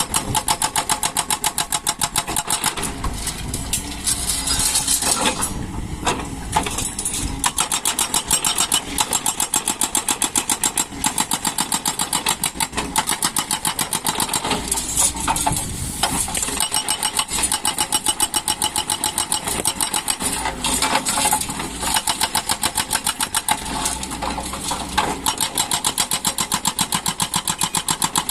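Excavator's diesel engine running with a fast, even chug, its low rumble swelling for a few seconds at a time several times as it works.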